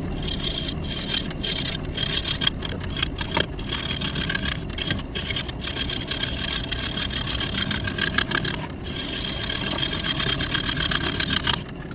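Wood lathe spinning a lopsided walnut blank while a turning tool cuts it. A loud hissing cut, broken by many brief gaps where the tool loses contact, runs over the steady rumble of the lathe, then dies down near the end.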